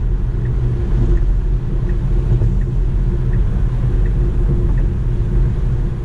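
Steady low rumble of road and wind noise inside the cabin of a Tesla Model 3 cruising at highway speed.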